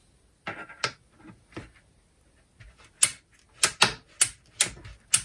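Ball-detent ratchet inside the pivot mechanism of a Makita DCF203 cordless fan, turned by hand and ratcheting in separate sharp clicks. There are a few faint clicks at first, then louder ones about every half second from about three seconds in.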